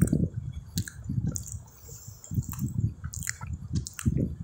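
Close-miked wet eating sounds: soft, irregular chewing and lip-smacking of a mouthful of rice, with sharp little mouth clicks. Squishing of fingers mixing rice and curry on the plate is mixed in, and the loudest bursts come at the very start and about four seconds in.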